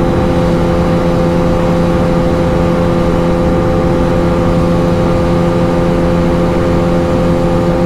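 Bajaj Pulsar RS 200's single-cylinder engine held at a steady high speed flat out at top speed, with heavy wind rumble on the microphone. The rider puts the engine's failure to pull further down to its rev limiter.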